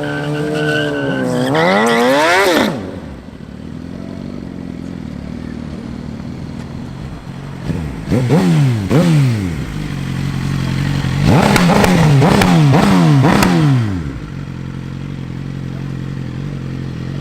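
A vehicle engine being revved while stationary: a held rev that climbs and drops away about three seconds in, then idling, two quick blips of the throttle around the middle, and a run of rapid throttle blips a few seconds later before it settles back to idle.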